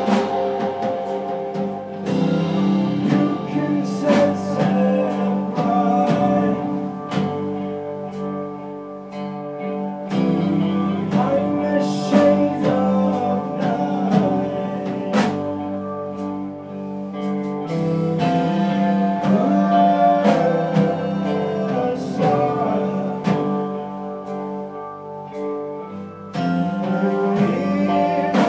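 A band playing live: electric guitars and bass over a drum kit with steady hits, and a man singing.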